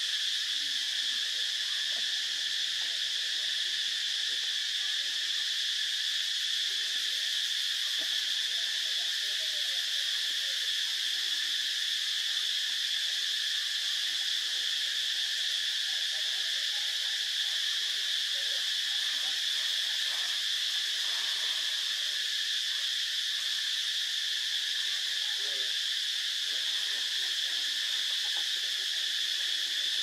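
Steady, unbroken high-pitched insect chorus, a dense shrill drone at an even level throughout.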